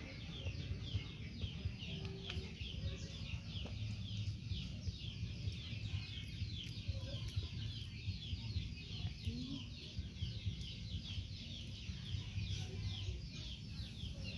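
Steady outdoor animal chirping: a fast, continuous train of short, high, falling chirps, several a second, over a low rumble.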